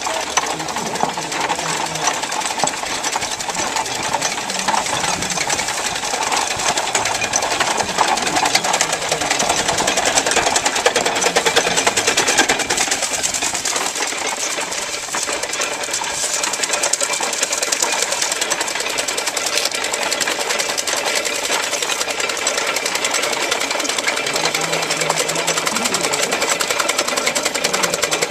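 Mule-powered wooden treadmill driving a belt-driven corn chopper: a steady, rapid mechanical clatter of the running machinery as cornstalks are fed in.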